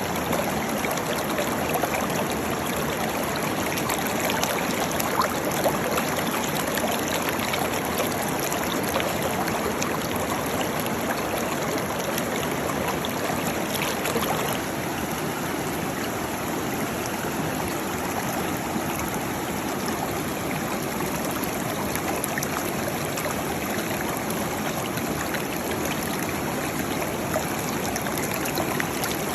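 Waterfall: a steady rushing splash of falling water, with small crackling splashes in it, easing slightly about halfway through.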